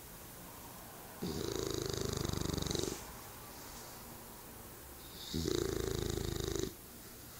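English bulldog snoring in her sleep: two loud snores, each about a second and a half long and about four seconds apart, with quieter breathing between them.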